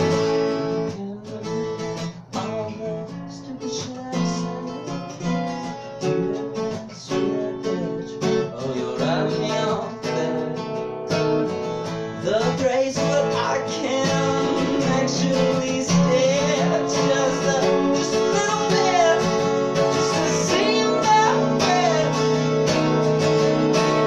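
Twelve-string acoustic guitar being strummed, sparser and quieter over the first ten seconds or so, then strummed fuller and steadily.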